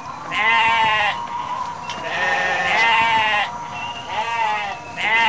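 Sheep bleating repeatedly: about five long, wavering bleats, some of them overlapping.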